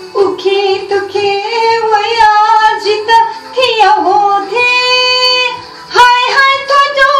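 A woman singing a Nepal Bhasa (Newari) song, her voice gliding between notes and holding one long steady note about two thirds of the way in before going on.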